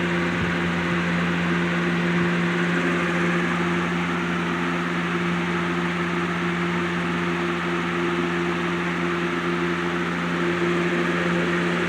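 Lasko 3733 20-inch box fan running steadily on its high setting: a constant motor hum under an even rush of air. Its freshly serviced motor runs smoothly, with its balance okay.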